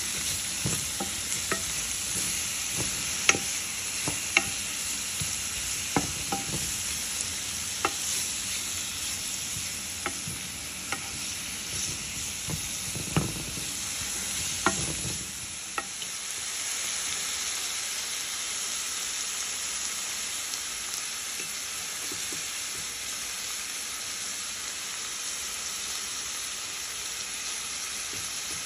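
Sliced onions, red peppers and garlic sizzling as they fry in a pot, with a wooden spoon stirring them and knocking against the pot's side during the first half. After that the frying sizzle goes on steadily without the knocks.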